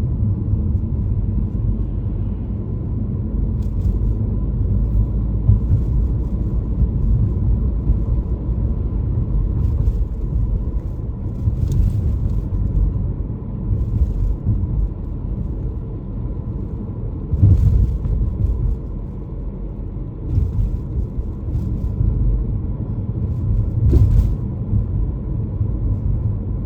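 Car driving, a steady low rumble of road and engine noise that swells and eases, with a few faint clicks.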